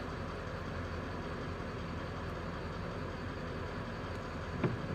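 Truck engine idling steadily with a low hum, with a single short click near the end.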